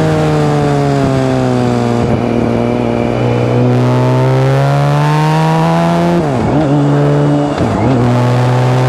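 BMW K1600GT's inline six-cylinder engine running on the move, its exhaust note enhanced in the recording. The engine note sags, then climbs steadily as the bike pulls, and dips sharply and recovers twice near the end.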